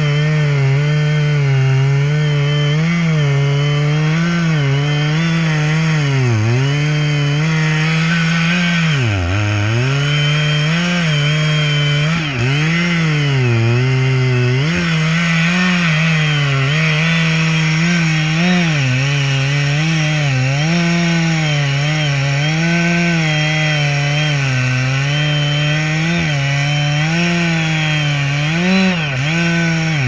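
An engine running hard while it cuts or chips wood, its pitch dipping again and again as it bogs under the load of the wood and then recovers, with one deeper dip about nine seconds in.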